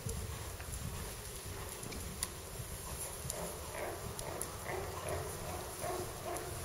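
Horse trotting on the sand footing of an indoor arena, over a steady low rumble. From about three seconds in there is a rhythmic run of soft sounds, about three a second.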